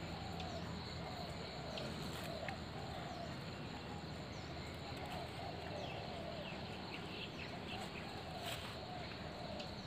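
An animal calling over and over in short, arched notes, about one or two a second, over a steady outdoor background hiss, with a few faint clicks and taps.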